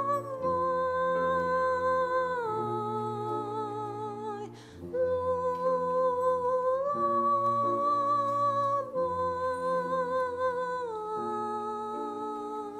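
Slow, soft Christmas music from a church choir and small orchestra: a melody in long held notes, mostly stepping down, over low sustained chords, with a short breath between phrases about halfway through.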